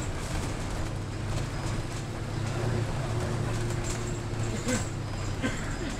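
City bus running with a steady low engine drone, and a few clicks and knocks near the end.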